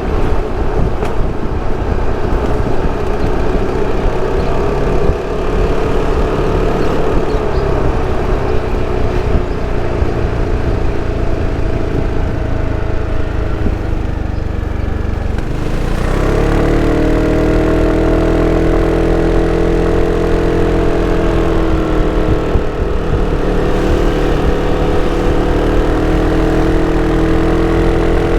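Sym Cruisym 300 scooter's single-cylinder four-stroke engine and stock exhaust running under way. The engine note grows louder and steadier a little over halfway through.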